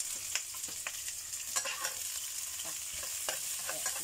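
Sliced shallots, garlic and red chillies sizzling in hot oil in a wok as they are stir-fried, with a steady hiss and scattered short clicks and scrapes of the spatula against the pan.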